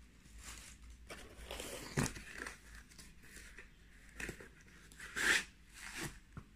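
Cardboard box being handled and opened, its flaps scraping, and packing wrap rustling and crinkling in irregular bursts. A sharp knock comes about two seconds in, and the loudest crinkle a little after five seconds.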